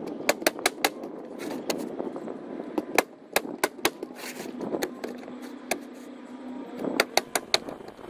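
Ridgid 15-degree coil roofing nailer, air-powered, firing nails into asphalt shingles: sharp cracks in quick runs of two to four shots, with rustling of shingles being handled between the runs.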